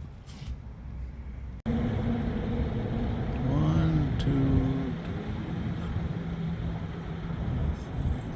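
Low, steady rumble of car or road traffic. It cuts off abruptly about one and a half seconds in and comes back louder, with a few short pitched tones around the middle.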